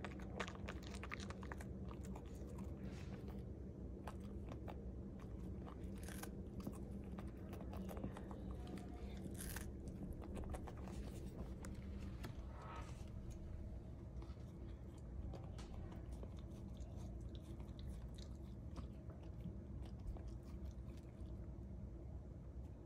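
A dog crunching and chewing pieces of raw red bell pepper, with sharp crunches coming thickly in the first half and more sparsely later. A steady low hum runs beneath and stops about halfway.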